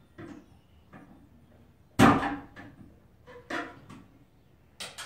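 Sharp knocks and bumps against the wooden wall framing: the loudest comes about two seconds in, another follows a second and a half later, and a strong one lands near the end. Quieter rustling and tapping fill the gaps.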